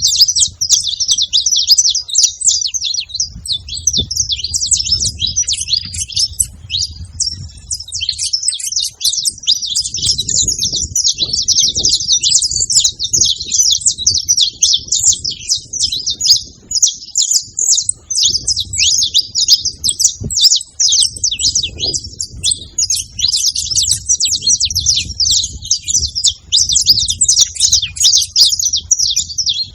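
Saffron finches chirping continuously, a dense stream of rapid high calls with no break. A low rumble comes and goes underneath.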